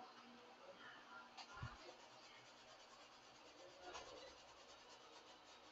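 Faint paintbrush strokes rubbing on canvas in near silence, with a soft low thump about a second and a half in.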